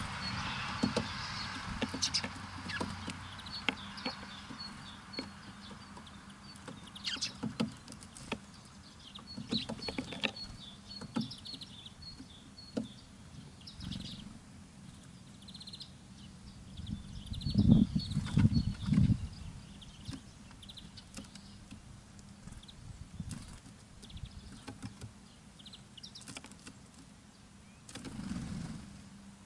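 Small birds at a feeder giving short, high chirps, mixed with scattered taps and knocks. There is a louder burst of low thumps about 18 seconds in.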